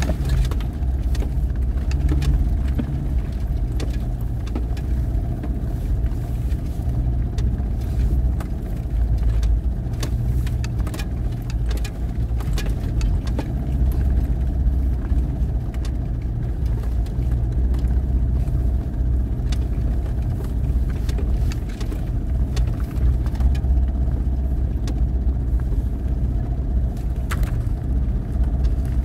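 Off-road vehicle's engine running at low speed with a steady low rumble as it crawls over a rough dirt trail, with scattered clicks and knocks throughout.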